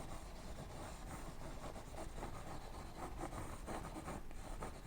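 Faint, irregular scraping and rubbing of a palette knife working oil paint into the canvas.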